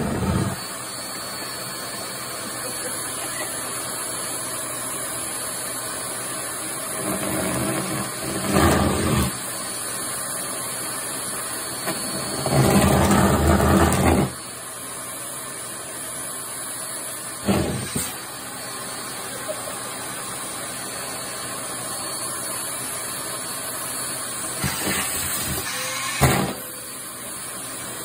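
Vacuum cleaner running steadily through its hose and plain tube nozzle, sucking at cloth. Twice it gets louder for a second or two, about eight and thirteen seconds in, as fabric is drawn against the nozzle, and there are a couple of short sharp pops later on.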